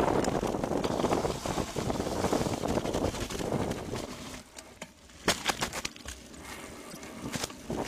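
Wind buffeting a bike-mounted phone microphone and the BMX bike's tyres rolling fast down a dirt trail, dying away about four seconds in; after that, several sharp clicks and rattles from the bike.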